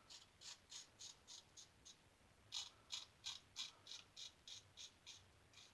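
Single-edge safety razor with a Gem stainless steel blade scraping through lathered stubble in quick short strokes, about four a second, with a brief pause about two seconds in before a louder run of strokes.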